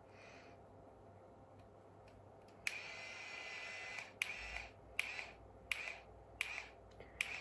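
Beach Waver rotating curling iron's small motor turning the barrel in short runs, each started by a button click: one longer run about 2.7 s in, then five short ones in quick succession as hair is wound onto the barrel.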